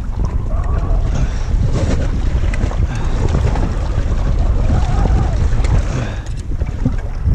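Wind buffeting the microphone, with sea water lapping and sloshing around the stern of a drifting boat.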